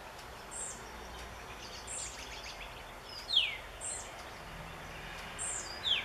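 Fledgling European pied flycatcher calling for a parent: a short, high call repeated four times about a second and a half apart. Two louder calls that slide down in pitch come in between, the loudest about halfway through and another near the end, over a steady background hiss.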